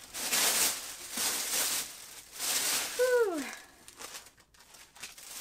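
Tissue paper rustling and crinkling in three bursts as it is pulled out of a cardboard box, with a short falling vocal "ooh" about three seconds in.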